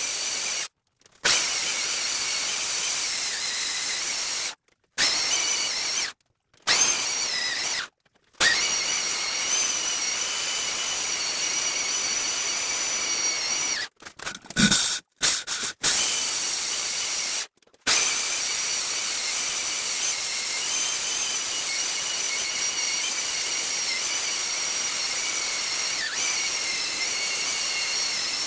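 Handheld electric diamond core drill boring into a rock wall: a steady high-pitched whine of the motor and bit grinding stone. It is broken by several short, abrupt gaps of silence.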